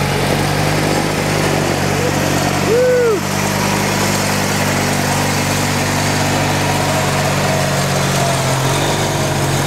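Craftsman snowblower's small gas engine running steadily, its note shifting slightly near the end. A brief rising-and-falling tone sounds about three seconds in.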